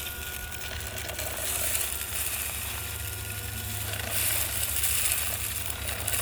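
Haimeec cordless stick vacuum running while sucking up sand: a steady motor whine under a hiss of rushing air, with sand grains crackling and rattling through the nozzle. It is drawing real suction after a clog was cleared.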